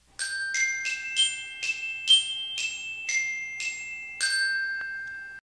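Logo intro jingle: a short melody of bright, ringing struck notes, about ten of them at roughly two to three a second. The last note rings on for about a second before it cuts off.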